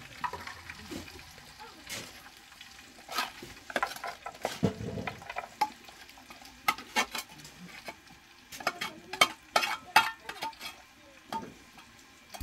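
Irregular clicks, knocks and scrapes, like a tool or utensil being worked against a hard container or surface, coming in clusters of quick strikes in the second half.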